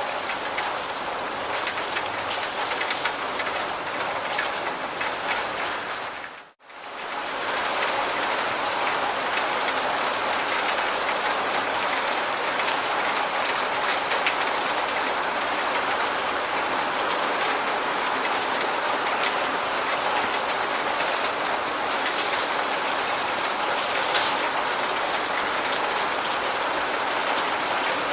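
Steady, heavy rain. It cuts out for an instant about six seconds in and comes back slightly fuller.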